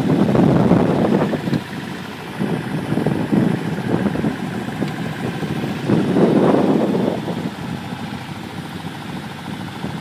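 A sailboat's inboard engine running under way, under a steady rush of wind, with wind buffeting the microphone in louder gusts at the start and again about six seconds in.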